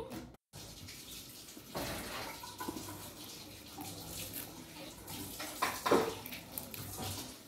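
Kitchen tap running as someone washes at the sink, with a few short clicks and scrapes of a small knife peeling garlic cloves close by.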